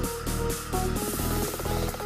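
Background electronic music with a steady beat of about four pulses a second and held synth tones.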